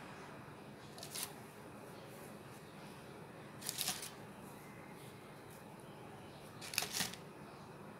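Parchment paper rustling three times, briefly, as hands pick English muffins up off a paper-lined baking tray, over a faint steady hiss.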